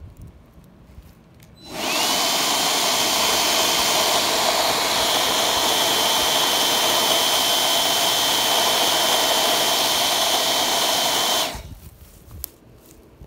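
Battery-powered power duster, a cordless blower driving a dust bottle, running steadily with a high motor whine as it blows insecticide dust into a hole in the soil. It starts abruptly a couple of seconds in, the whine rising slightly as it spins up, and it cuts off sharply after about ten seconds.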